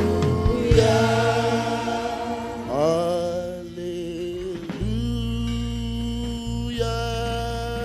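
Gospel worship singing: voices holding long notes with vibrato, sliding up to a new note about three seconds in, over a steady low instrumental accompaniment.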